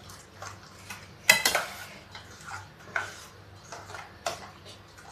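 Steel spoon stirring thick gram-flour batter in a stainless steel bowl: irregular clinks and scrapes of the spoon against the bowl, with one louder ringing clink about a second in.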